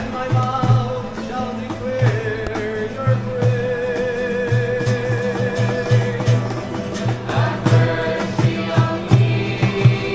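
Music: a song with singing voices over a steady beat.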